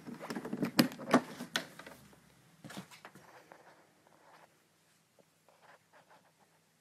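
A quick clatter of sharp clicks and knocks for about two seconds, then a few fainter taps: handling and movement noise from someone walking through a small room with a handheld phone.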